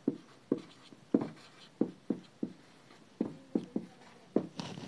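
Marker pen writing on a whiteboard: about ten short, uneven strokes as a word is written out.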